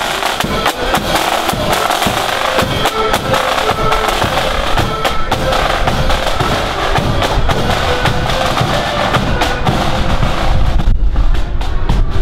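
Marching accordion band playing a tune on accordions over snare and bass drums. Near the end the band's sound thins and a car's low engine rumble comes in close by.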